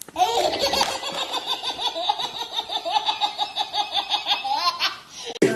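Someone laughing hard in a long run of quick, high-pitched pulses, about five or six a second, breaking off near the end.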